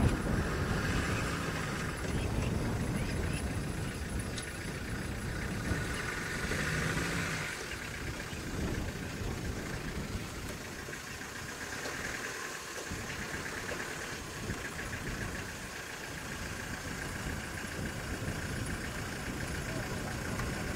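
Safari vehicle engine idling steadily, a low rumble with no change in pitch.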